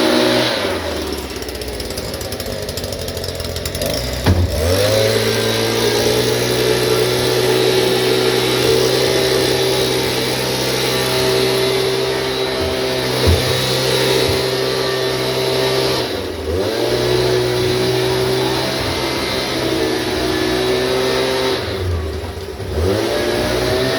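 Small gasoline engine running steadily, its speed sagging sharply and recovering three times, at about four, sixteen and twenty-two seconds in.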